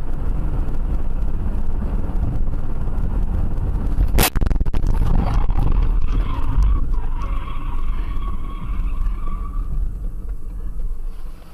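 Car on a highway heard from inside, with steady road and engine rumble. A single sharp bang comes about four seconds in, then the tyres squeal for several seconds as the car skids toward the shoulder.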